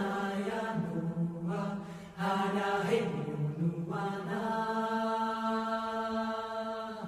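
Outro music of chanted singing on 'hey ya na' syllables, with two short breaks, then one long held note through the last three seconds.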